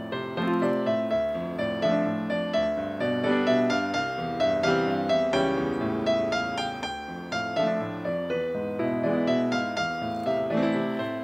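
Background piano music: a gentle melody of struck notes, each fading before the next.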